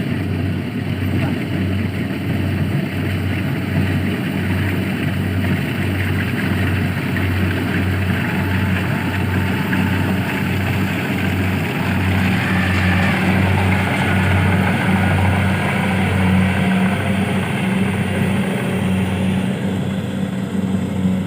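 Small engine of a rice-harvesting machine running steadily under load, with a regular, even throb and a steadier hum that grows stronger about halfway through.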